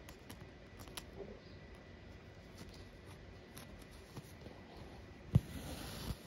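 Faint handwork sounds of cross-stitching: needle and thread drawn through the fabric with light scattered clicks, and one sharper knock about five seconds in.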